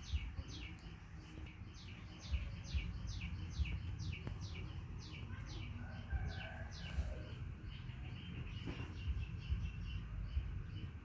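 A bird calling a rapid series of short, high chirps, each sliding down in pitch, about three a second; the run stops about three-quarters of the way through. A low rumble runs underneath.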